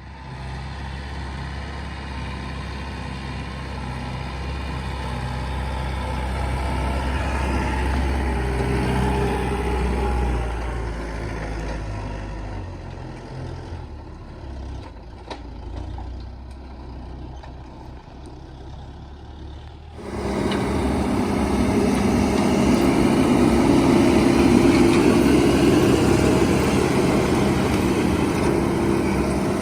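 Tractor engine running steadily, growing louder and then fading away over the first half. About twenty seconds in it switches abruptly to a louder, closer engine sound.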